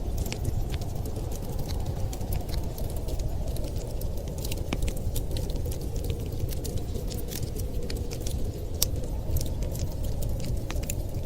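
Wood fire crackling, with frequent irregular sharp snaps and pops over a steady low rumble of wind.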